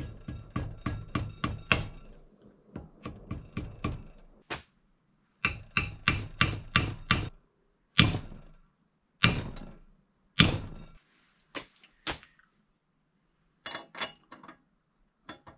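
A hammer tapping the pinion seal into a Land Cruiser front differential's pinion housing: quick runs of light taps, then three single harder blows a little over a second apart, then a few lighter taps.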